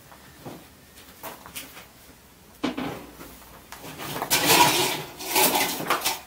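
A stack of metal hubcaps clattering and clanking together as it is pulled out of a car, with rummaging knocks. It starts with a sudden knock about two and a half seconds in; the loudest clatter comes in the last two seconds.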